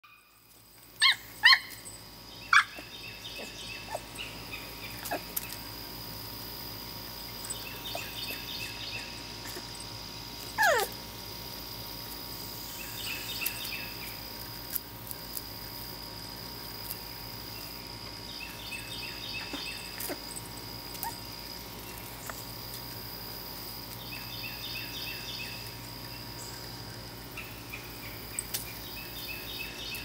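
A beagle puppy barks three sharp times in the first few seconds. About ten seconds in he gives one yelp that falls steeply in pitch. A bird repeats a short phrase of quick high notes every five seconds or so over a steady high-pitched drone and a low hum.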